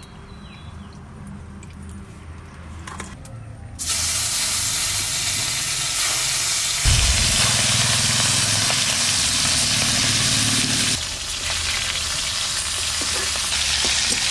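Fish steaks frying in hot mustard oil in a wok. A steady, loud sizzle starts suddenly about four seconds in and goes on to the end, with a low rumble underneath for a few seconds in the middle.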